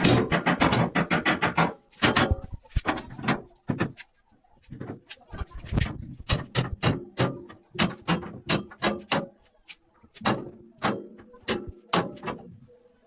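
Repeated hammer blows while a metal window grill is fitted into a wooden frame: a quick flurry of knocks in the first two seconds, then irregular strikes about two or three a second with short pauses.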